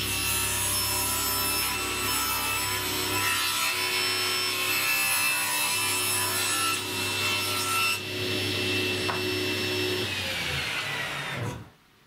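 Table saw ripping a long taper along a softwood board fed on a taper jig: a steady motor and blade whine over the noise of the blade cutting wood. Near the end the whine falls in pitch, and then the sound cuts off abruptly.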